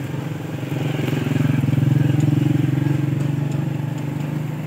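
A passing motor vehicle's engine: a steady low hum that grows louder to a peak about two seconds in, then fades away.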